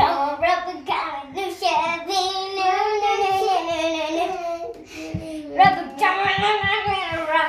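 A child singing a melody in long, held notes. A run of soft low thumps comes in about five seconds in.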